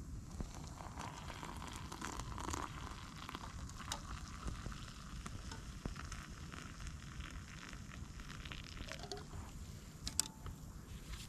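Hot chocolate being stirred in a metal camp mug or pot: a spoon scraping and clicking against the metal, with a few brief ringing clinks near the end, over a steady low hiss.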